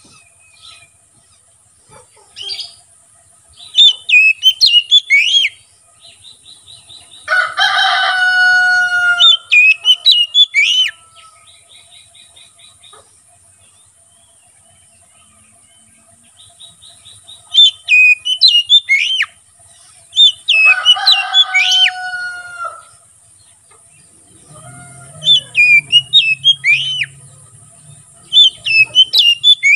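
Oriental magpie-robin singing its full song: short bursts of loud, varied whistled phrases that come again every few seconds. Two longer, lower, harsher calls come about 7 and 21 seconds in.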